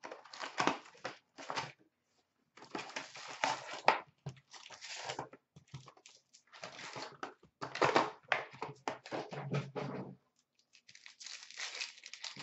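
Hockey card box and its packs torn open and crinkled by hand, in irregular bursts of tearing and rustling with short pauses between.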